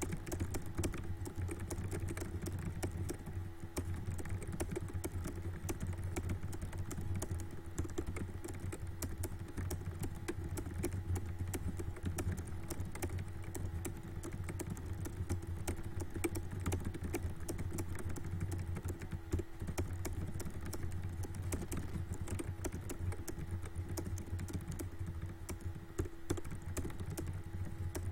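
Fast, continuous typing on a computer keyboard, a rapid stream of key clicks at a typing-test pace of about 139 words per minute, over a steady low hum.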